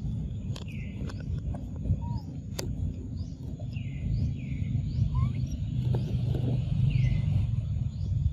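Outdoor forest ambience: birds giving short repeated chirps, several a second apart, over a steady low rumble, with a few sharp clicks.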